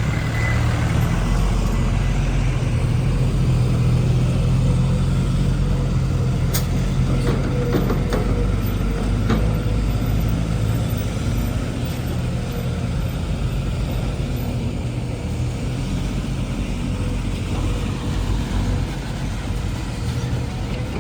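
Diesel dump truck's engine running steadily while the truck tips its load of soil, with a few short knocks about six to nine seconds in.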